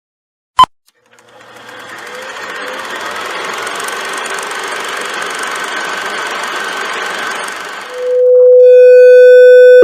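A short sharp beep, then a steady mechanical whirring noise that fades in over a couple of seconds and holds. About eight seconds in, the whirring gives way to a loud, steady, buzzy electronic tone.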